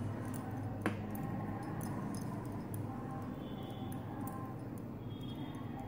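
Metal knitting needles clicking faintly against each other as yarn is worked in one-knit-one-purl rib, with one sharper click about a second in, over a steady low hum.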